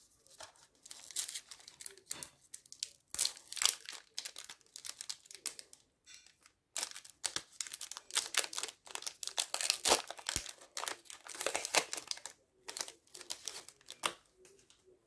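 Trading card pack wrapper being torn open and crinkled by hand: a run of irregular crackles and rips, with a short pause about six seconds in.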